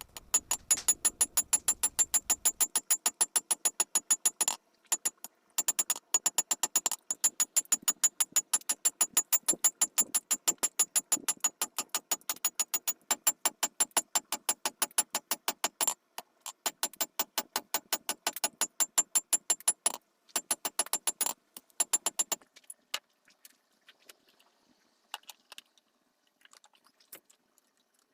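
Blacksmith's hammer striking hot steel on an anvil in quick, even blows, about four a second, each with a bright metallic ring, in runs broken by short pauses. The hammering stops a little over twenty seconds in, leaving only a few scattered light taps.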